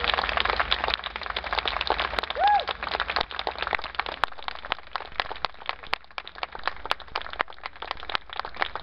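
Audience clapping, many hands at once, growing sparser toward the end, with a brief call from the crowd about two and a half seconds in.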